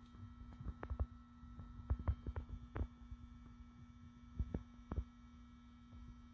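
Steady low electrical hum with a scattered series of light knocks and taps from handling, the sharpest about two seconds in and again around five seconds.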